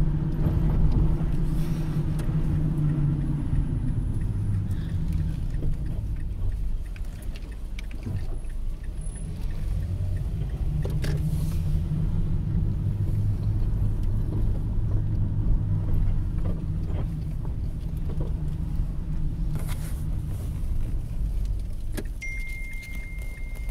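Car engine and road noise heard from inside the cabin while driving, a steady low hum whose pitch drops a few seconds in. A thin, steady high tone comes in near the end.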